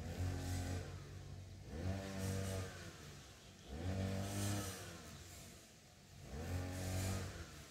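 An engine off-scene, revved up and falling back again and again, about once every two seconds.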